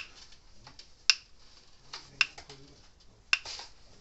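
Speedrite 980 mains fence energizer pulsing under a 500-ohm test load, giving a sharp click with each output pulse, four clicks about a second apart.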